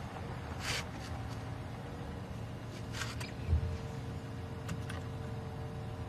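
Game-drive vehicle engine idling with a steady low rumble and hum, with a few light clicks and rustles and one soft low bump about three and a half seconds in.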